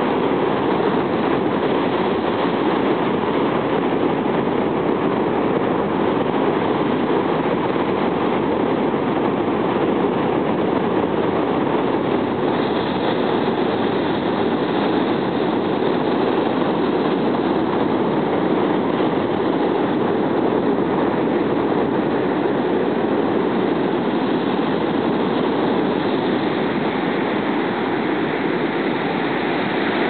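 Heavy surf breaking continuously on a sandy beach, a steady unbroken wash of noise with no lull between waves; the swell is raised by a typhoon.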